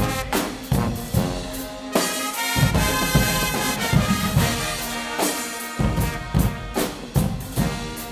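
Guggenmusik band playing: trumpets and baritone horns carrying the tune over drums that keep a steady beat of about two to three strokes a second.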